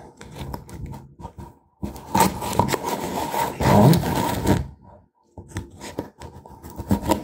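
A knife blade scraping and slicing through the tape sealing a small product box. There is a long rough scrape of about three seconds starting about two seconds in, then a few light ticks.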